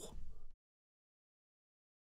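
A man's exclamation trails off in the first half second, then the sound track drops to complete silence.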